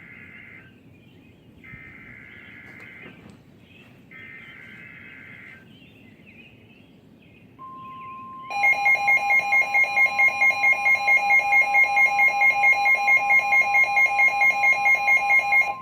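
Emergency Alert System warning header: three short bursts of warbling digital data tones, then the steady single-pitch warning alarm tone. About a second after the alarm tone begins, a much louder pulsing electronic beep joins it, about four beeps a second, and stops near the end while the steady tone carries on.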